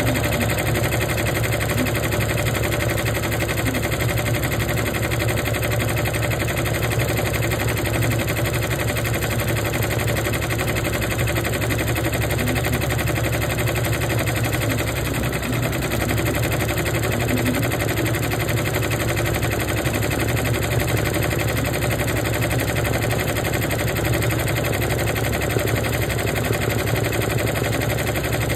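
Embroidery machine running steadily, its needle stitching rapidly through fabric held in a hoop.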